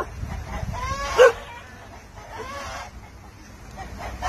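Chickens clucking in a few short calls, the loudest about a second in and another near the middle.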